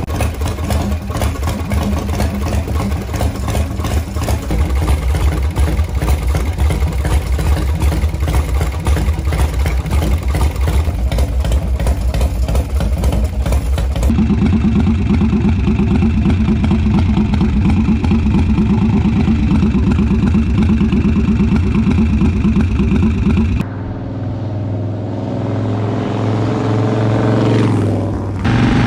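Harley-Davidson Shovelhead V-twin engine running in a few separate takes that change abruptly. It starts with strong, uneven firing pulses, turns to a steadier and louder run about halfway through, and near the end runs quieter while riding, its pitch climbing as the bike speeds up.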